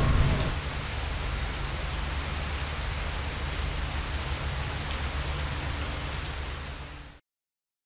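Steady hiss of falling water, like rain, over a low steady hum; it fades and cuts off about seven seconds in.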